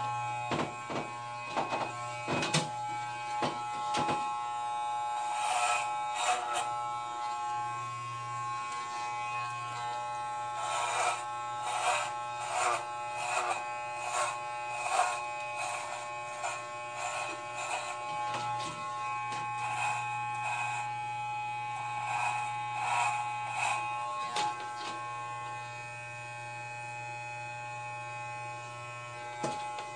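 Electric hair clippers buzzing steadily while shaving long hair off a head, with a run of short, louder strokes through the middle as the blades cut through thick locks.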